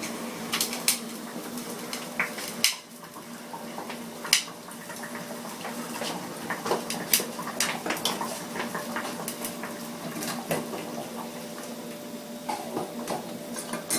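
Metal tins and a cooking pan being handled, with scattered clinks and knocks of metal on metal over a steady low hum.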